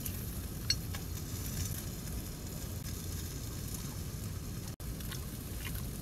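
Meat sizzling in a pan on a camping stove, a steady frying hiss, with a single light clink about a second in.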